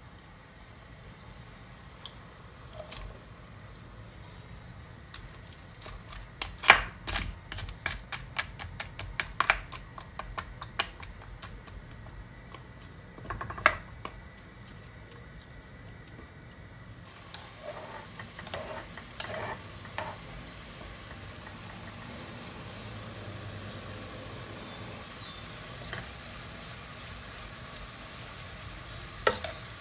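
Vegetables simmering in a shallow pool of water in a non-stick wok, a steady hiss that becomes a little louder and more of a sizzle near the end as the water boils down. A dense run of sharp clicks and taps from vegetables going into the pan and a spatula stirring and knocking against it falls in the first half, with a few more later.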